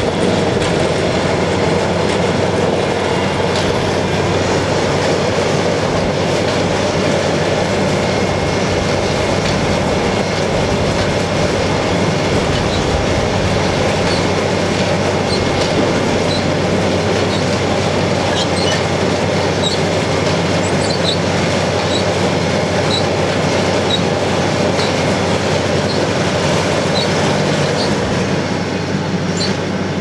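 Self-propelled Dewulf RA3060 potato harvester at work: its Deutz six-cylinder diesel running under load with the steady clattering rattle of its digging and conveyor webs, a tractor running alongside. Light high clicks come and go in the second half.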